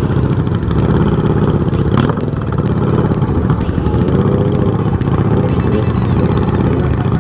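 Motorcycle engines running at low speed in slow traffic: the rider's Yamaha XJ6 inline-four and a cruiser motorcycle alongside, a steady low rumble. A single sharp click about two seconds in.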